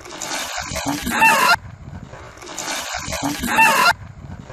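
Ice water pouring from a bucket and splashing over a person, ending in a short, high, wavering cry that cuts off suddenly. The same pour and cry play twice in a row.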